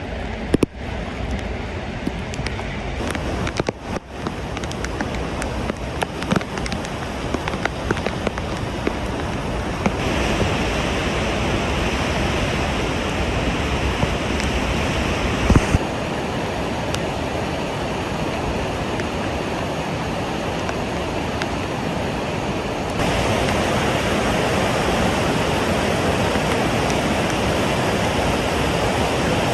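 Steady rushing noise of floodwater, changing abruptly a few times as the footage cuts from one clip to the next.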